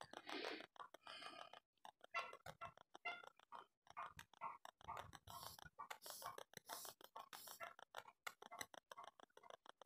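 Charcoal stick scratching over drawing paper in many short, irregular strokes, faint.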